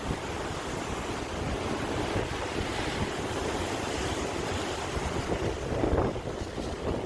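Sea waves washing and breaking, a continuous rushing surf that swells twice, the louder surge about six seconds in, with wind buffeting the microphone.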